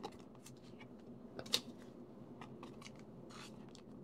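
Glossy trading cards being flipped and slid against each other in the hands: faint swishes and light clicks, with one sharper click about a second and a half in.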